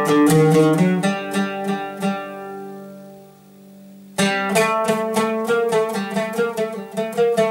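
Oud played with a plectrum: quick repeated plucked notes over a low ringing note, letting the notes ring and fade away for about two seconds, then quick plucking starts again suddenly just past the middle.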